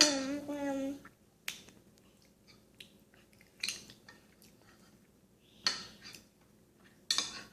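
A few short, sharp clicks and knocks of tableware, spaced one to two seconds apart, as a toddler handles his soup bowl and utensils at the table.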